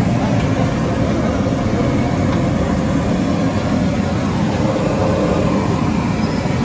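Steady roar of a gas burner under a large wok, with hot oil sizzling around whole fish deep-frying in it.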